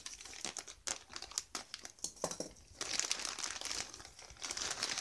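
Parcel packaging crinkling and crackling as it is handled and opened by hand. The crackles are scattered at first and thicken into a steady crinkle about three seconds in.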